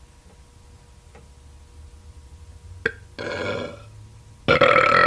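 A woman burping deliberately in a row: a sharp click, then a short burp about three seconds in, followed by a long, loud burp from about four and a half seconds on.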